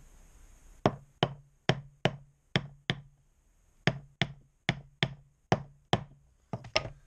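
About fourteen sharp wooden knocks with a short low thud, as a ball bearing is tapped down onto the shaft of a Yanmar 1GM10 water pump using a strip of wood on a wooden block. They come in a run of six, a pause of about a second, six more, then a quick pair near the end.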